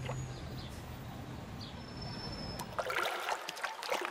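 A low steady background gives way suddenly about three seconds in to swimming-pool ambience: water splashing and lapping.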